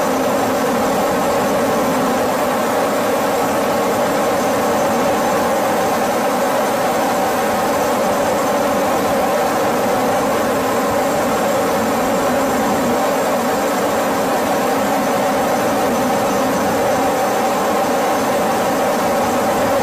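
Aircraft engine droning loudly and steadily, a constant hum with a faint high whine above it.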